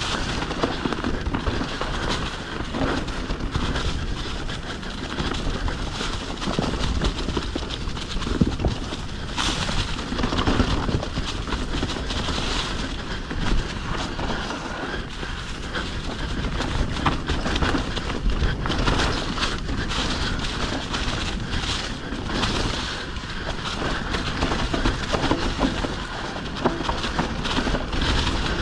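Mountain bike ridden fast over a rough trail: continuous rumble of the tyres on dirt and rock, with the bike's chain and parts rattling and wind on the camera.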